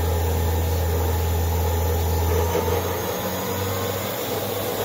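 Vertical machining center's spindle running unloaded at speed, a steady mechanical hum with a strong low drone. About two and a half seconds in the low drone drops away and the machine runs on slightly quieter.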